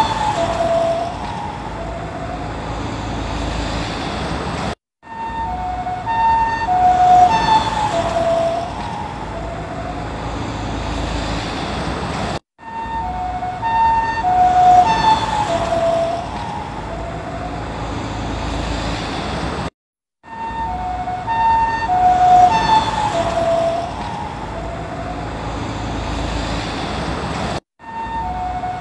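Ambulance two-tone hi-lo siren approaching and passing, both tones dropping in pitch as it goes by (Doppler effect), over the road noise of the passing vehicle. The same pass repeats about four times, each ending in a brief cut to silence.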